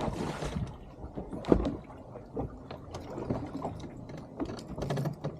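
Handling noises on a fishing boat: a short water-like rush at the start, then scattered knocks and bumps, with one sharp bump about a second and a half in.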